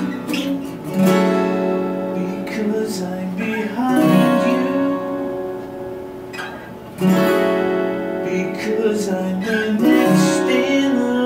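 Two acoustic guitars playing together, a chord progression with new chords struck about every three seconds and left to ring between them.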